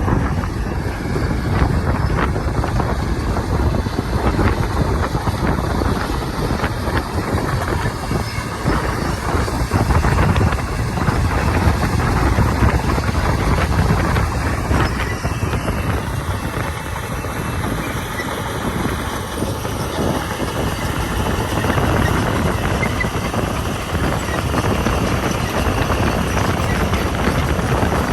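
Komatsu D41P crawler bulldozer at work: its diesel engine running steadily, with constant clattering and rattling from the tracks and gravel.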